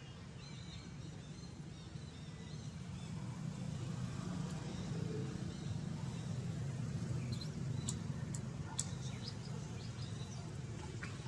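Low rumble of a passing vehicle, swelling over several seconds and easing off near the end, with a few short high chirps and clicks in the second half.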